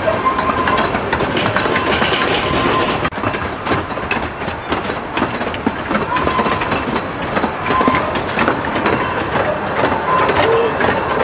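Train running along the track, its wheels clattering steadily over the rails.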